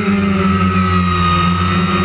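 Multirotor drone's motors and propellers buzzing while it hovers. The tone holds steady with several close pitches, after a small drop in pitch right at the start.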